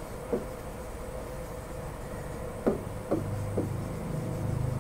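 A stylus tapping on an interactive whiteboard screen while writing: one light tap near the start and three more in quick succession past halfway, over a steady low hum that grows a little louder after about three seconds.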